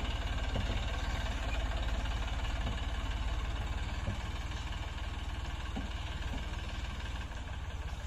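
Eicher 480 tractor's diesel engine running steadily at low revs, growing slightly fainter as the tractor pulls away.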